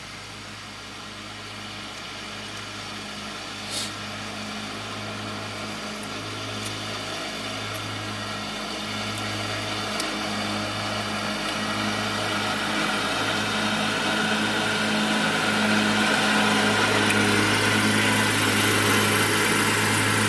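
Truck engine idling, heard from inside the cab: a steady low hum that grows gradually louder, with a few faint clicks.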